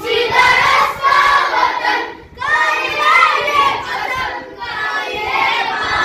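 A group of young boys singing a patriotic Urdu song in unison, unaccompanied, with a short break between phrases about two and a half seconds in.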